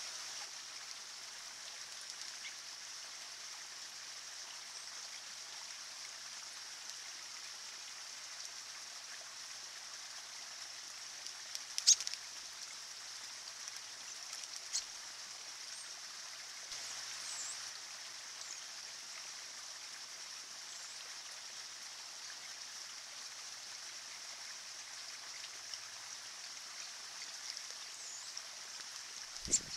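Small man-made stream trickling steadily over slate and rocks, with a few sharp clicks, the loudest about twelve seconds in, and a few faint short high chirps.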